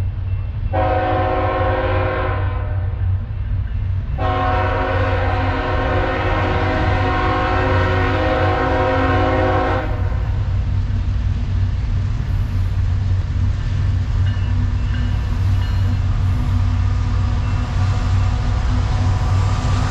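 Diesel freight locomotive air horn sounding a chord of several notes: a short blast, then a long one lasting about five seconds, the closing short-long of a grade-crossing signal. After the horn stops about ten seconds in, the low steady rumble of the approaching CSX ET44AH-led train carries on.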